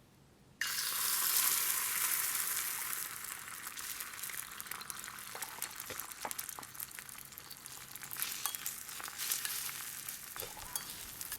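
Food sizzling on a hot iron griddle over a campfire, starting suddenly about half a second in as it hits the metal, loudest at first and then settling into a steady sizzle with small pops.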